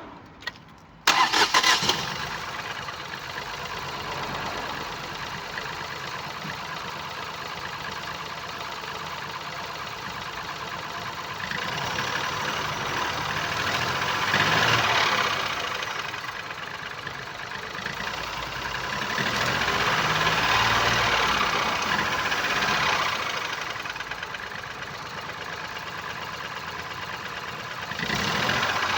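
2019 Ford Focus 1.0 EcoBoost three-cylinder petrol engine starting about a second in, then running with no compression in its first cylinder, a fault that can lead to serious engine damage. It speeds up and settles back twice.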